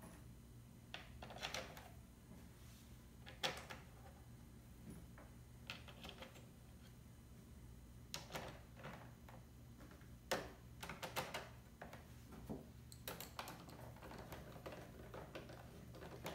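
Irregular light clicks and taps of a plastic instrument-cluster cover being handled and its small screws being set in place by hand, with a few sharper knocks.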